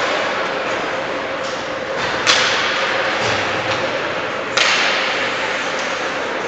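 Two sharp cracks from ice hockey play, about two seconds apart, each ringing on in the rink's echo, over a steady hiss and hum of the arena.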